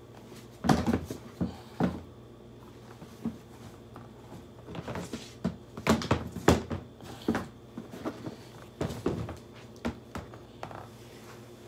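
Handling noise from rummaging for a pair of football cleats: irregular knocks, thumps and rustling, with the louder knocks coming about a second in, near two seconds, and in a cluster around six to seven seconds.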